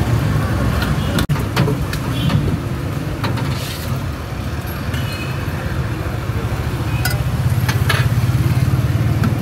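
Steady low rumble of street traffic and motor engines, with a few short knocks and clinks from a steel ladle against a steel pot and a glass mug as sharbat is ladled out.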